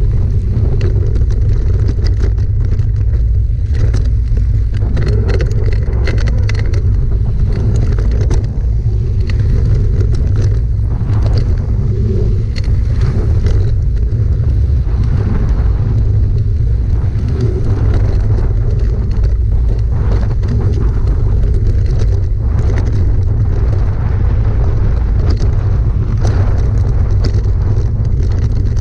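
Wind buffeting the microphone of an action camera on a mountain-bike rider descending fast, a loud steady low rumble, mixed with tyre noise on a dirt trail and frequent clicks and rattles from the bike over bumps.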